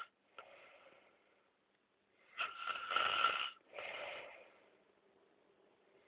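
A man snoring in his sleep: a loud snore about two and a half seconds in, then a softer second breath right after it, with silent pauses between breaths.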